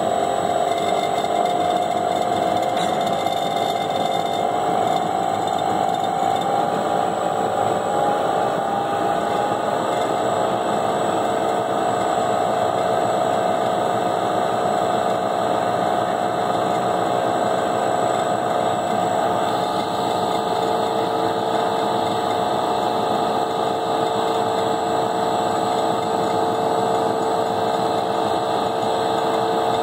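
Tote mixer running steadily as its shaft blends oil into viscous orange juice concentrate. The motor's hum rises slightly in pitch over the first several seconds, then holds steady.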